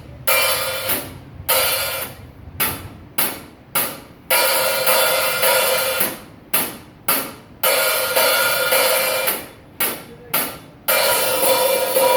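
Drum kit cymbals being struck during a sound check: an irregular run of crisp hits, some choked short and some left ringing for a second or more, with little drum low end beneath.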